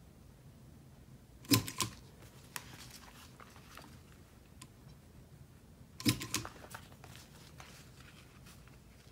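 Hand-held hole punch snapping shut through a fabric flap twice, about a second and a half in and again about six seconds in, each time a short cluster of sharp clicks.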